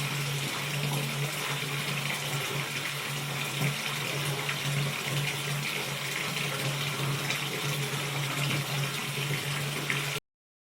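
Water running from a tap into a filling bathtub: a steady rushing splash with a low steady hum beneath it. It cuts off suddenly near the end.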